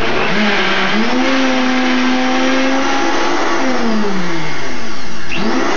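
Vitamix blender motor starting up and blending a thick avocado chocolate pudding mixture. Its whine rises as it starts, holds steady, sinks a few seconds in, then climbs sharply again near the end.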